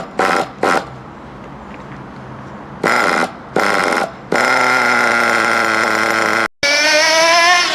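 Nitro engine of an FTX Outrage 1/8 RC buggy being cranked in a few short bursts, then catching about four seconds in and running steadily; it is a new engine still being broken in. After a brief dropout near the end it revs with rising pitch.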